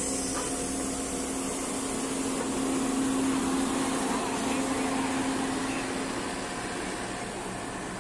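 Nilgiri Mountain Railway steam locomotive standing with a steady hiss of steam and a low hum, swelling slightly midway.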